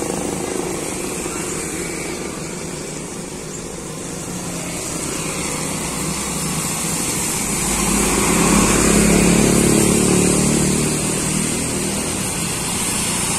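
Traffic passing on a wet road: motorcycles, then a large intercity coach going by, its engine and the hiss of tyres on the wet surface swelling to the loudest about eight to ten seconds in, before a second coach approaches near the end.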